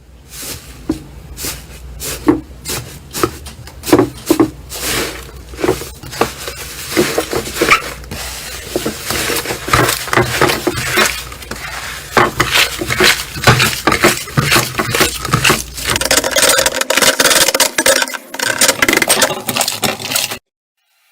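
Slime being squeezed and worked by hand, with many sharp crackles and pops that grow denser partway through and stop suddenly near the end.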